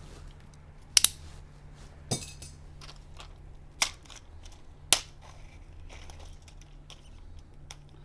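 Sharp clicks and clinks of small hard tool pieces being handled: a double click about a second in, then three more single ones over the next four seconds, as drill bits are picked through.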